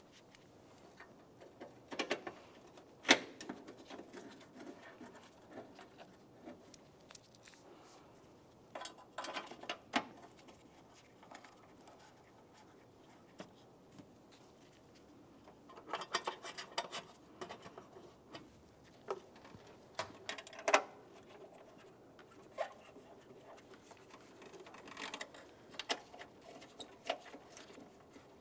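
Mounting bolts being set into a steel battery tray and started by hand: scattered metal clicks and short bursts of quick rattling ticks with quiet gaps between, the sharpest click about three seconds in.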